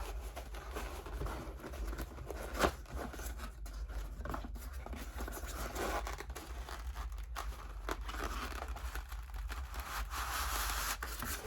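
Packaging of a boxed diecast model car being handled: crinkling and rustling with scattered clicks and taps as the model is taken out.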